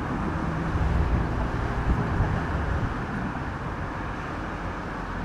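Steady low outdoor rumble with a faint hum running through it.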